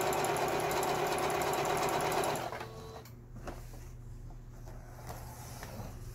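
Singer Fashion Mate 7256 computerized sewing machine running at a steady fast rate, sewing an overlock stitch along the fabric edge, then stopping about two and a half seconds in; the freshly repaired machine is sewing properly. After it stops, a few faint clicks and fabric rustles follow as the cloth is pulled out.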